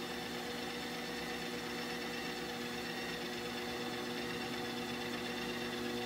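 Ninja CREAMi ice cream maker running its Ice Cream program: the motor spins the blade down through the frozen pint with a steady, even whirring hum. The cycle is nearly finished.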